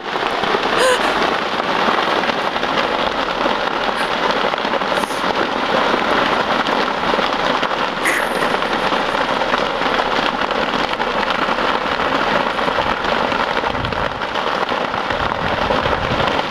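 Large open brush fire burning on a hillside, crackling steadily as a dense, rain-like hiss, with a few sharper pops.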